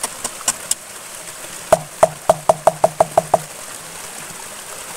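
A quick run of about nine hollow, ringing knocks that come slightly faster as they go, starting a little under two seconds in and lasting under two seconds, over a faint steady hiss.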